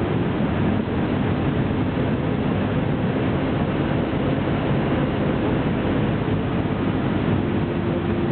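Ultralight aircraft's engine and rushing air heard from inside the cockpit on final approach: a steady drone. The engine note drops slightly about half a second in and comes back up near the end.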